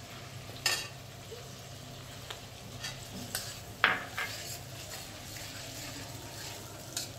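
Ginger and green chilli paste sizzling gently in melted butter in an iron kadhai, stirred with a spatula that scrapes and taps against the pan several times, loudest about four seconds in.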